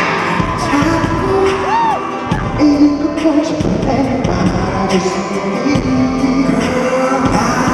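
Live pop music played loud through a concert sound system, recorded from the audience, with a male singer's voice over it.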